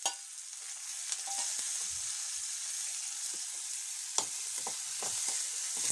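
Sliced onions frying in hot oil in a metal kadai: a steady sizzle. A metal ladle stirs and scrapes through them, knocking against the pan a few times, the sharpest tap about four seconds in.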